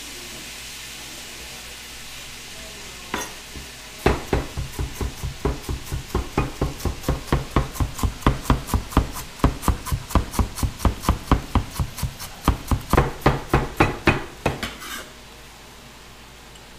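Chef's knife chopping fresh ginger into thin slices on a plastic cutting board: a fast, even run of knocks, about four to five a second, starting a few seconds in and stopping near the end. A pan of greens sizzles faintly underneath.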